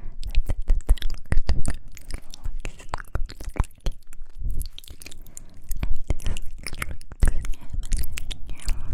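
Close-miked ASMR mouth sounds: wet clicks, smacks and pops made with the lips and mouth, coming in a quick, irregular stream.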